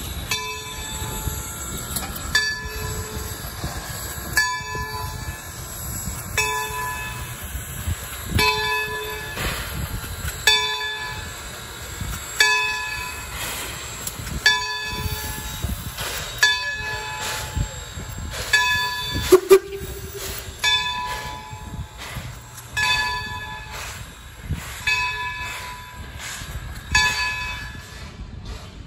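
Baldwin steam locomotive No. 26 and its passenger coaches rolling past, with a low rumble of wheels on the rails. A bell rings about once every two seconds, and there is one short, sharp, louder sound about two-thirds of the way in.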